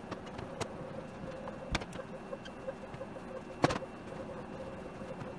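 Hard plastic knocks as cordless power tools are set down into a 3D-printed plastic organizer: a few separate sharp clacks, about three, over faint steady background noise.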